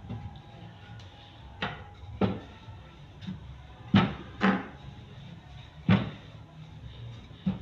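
Wooden rolling pin knocking on a tabletop while dough is rolled out thin for samosa and spring roll wrappers, about six sharp knocks at irregular intervals.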